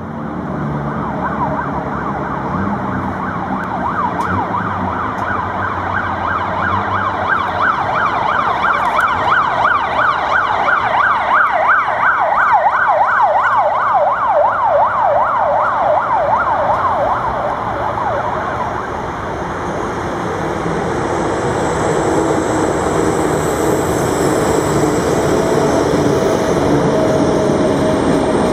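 Ambulance siren wailing, its pitch sweeping up and down several times a second, growing louder as it passes and then fading. From a little past halfway a container freight train takes over, its wagons rolling past with a steady rumble.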